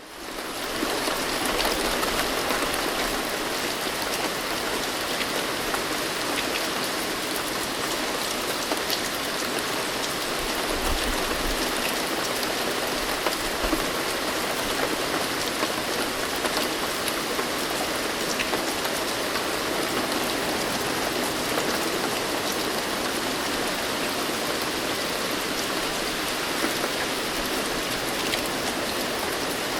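Steady, dense rainfall that fades in at the start, with faint low rumbles of distant thunder, most noticeable around the middle.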